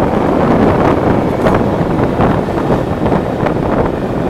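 Loud wind buffeting the microphone while riding on a moving motorbike, with the bike running underneath.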